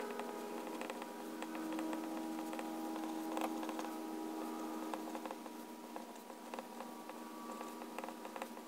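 Extra-fine steel fountain pen nib (Pilot Penmanship EF in a Pilot Prera) writing on Rhodia paper: quick, irregular scratches and small ticks as the letters are formed, over a steady hum.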